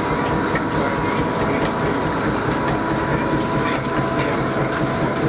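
Antique cotton gin, over 100 years old, running empty: a steady mechanical clatter with a faint steady whine.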